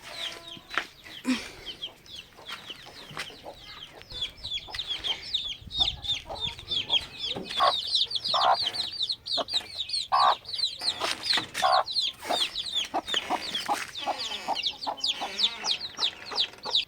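Chickens calling as they feed: a steady stream of short, high-pitched calls with clucks and scattered sharp taps.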